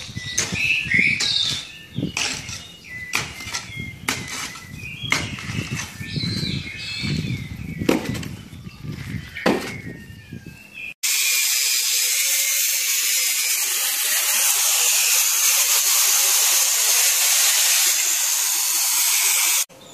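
Angle grinder cutting steel rods: a loud, steady, high-pitched grinding hiss that starts suddenly about halfway through and stops abruptly just before the end. Before it, scattered knocks and taps of building work with short bird chirps.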